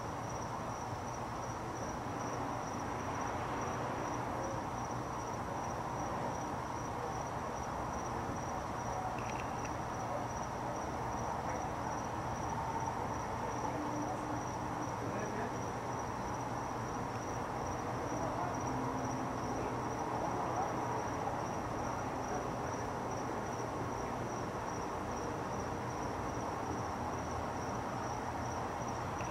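Cricket chirping in a fast, even pulse without a break, over a steady low background rumble.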